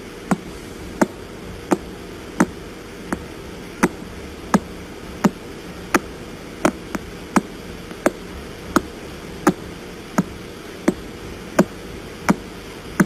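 Pulsar radio signal recorded by a radio telescope and played as sound: evenly spaced sharp clicks, a little more than one a second, over a steady static hiss. It sounds like someone knocking on a door.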